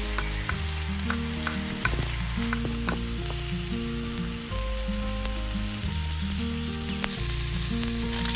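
Oil frying in a miniature pan, with a steady sizzle and light clicks of a tiny spatula stirring, over background music with a steady bass line.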